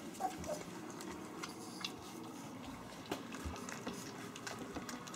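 Three-week-old puppies lapping and smacking at soft mushy food in a shared dish, a busy patter of small wet clicks: their first solid food.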